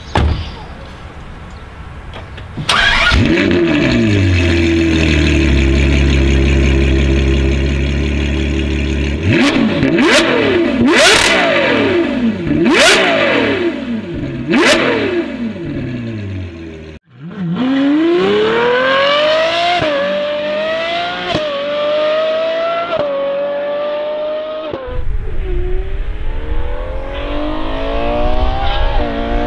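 Ferrari 812 N-Largo's 6.5-litre V12 through a Novitec exhaust: it starts up about three seconds in, settles to a steady idle and is blipped sharply about four times. After a short break it accelerates hard, pitch climbing and dropping at each of four quick upshifts, and a second run builds near the end.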